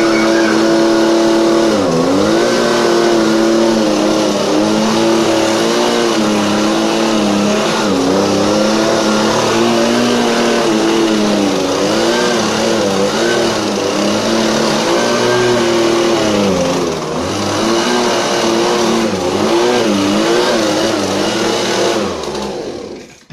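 Blower used as a makeshift hairdryer, running loudly and steadily. Its pitch dips briefly again and again as it works, and it cuts off near the end.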